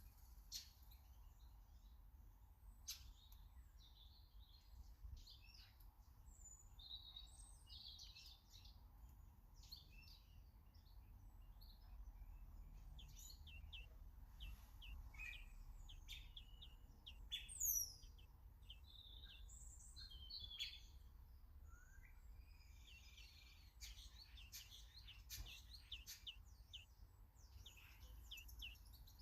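Small garden songbirds chirping and twittering faintly, many short calls in quick succession, with one louder falling call about eighteen seconds in.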